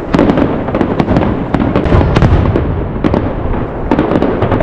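Fireworks display: many sharp crackling bangs in quick succession over a continuous low rumble of shell bursts, thickest about two seconds in.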